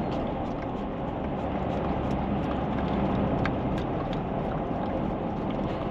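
Steady low vehicle rumble, with a few faint small clicks.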